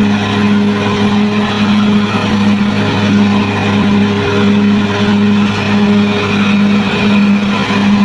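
Bulldozer's diesel engine running steadily, a constant low drone that wavers slightly in level.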